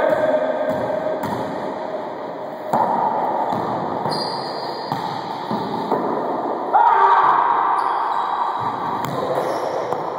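Wallyball rally in an enclosed racquetball court: the rubber ball is struck by hands and bounces, with two loud slaps about three and seven seconds in, each echoing off the court's walls.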